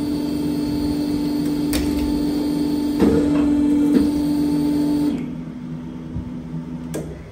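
Electric motor of a workshop bench machine running with a steady hum, then switching off about five seconds in. A few knocks come about three and four seconds in, and sharp clicks come just under two seconds in and near the end.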